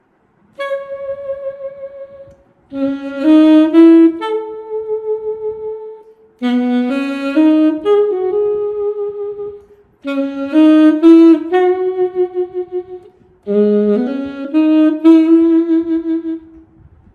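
A sampled saxophone from the VHorns virtual instrument, played live from an EWI USB wind controller: a single melodic line in about five short phrases with brief breaths between them, the held notes carrying a fast vibrato.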